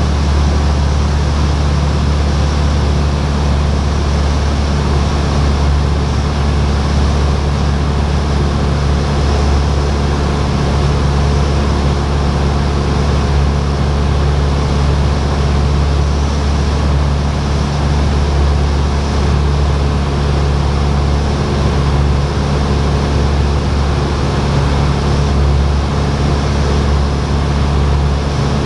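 Single-engine light aircraft's piston engine and propeller droning steadily in flight, heard from inside the cabin.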